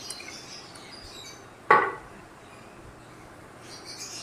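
A sauce bottle knocking once on the kitchen counter about a second and a half in, a single sharp clack that dies away quickly.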